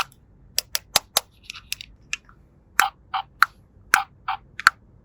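Small plastic toy pieces clicking and tapping as they are handled: a string of about a dozen short, sharp clicks at an uneven pace, with a brief rustle about a second and a half in.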